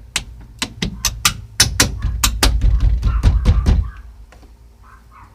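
A quick, irregular run of sharp knocks and clicks, well over a dozen in about four seconds, with heavy thumps of hands handling parts in the middle stretch, then it stops. The knocks come from work on a car door's trim and hardware.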